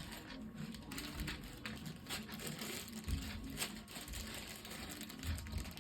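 Handling noise: irregular crinkling and clicks.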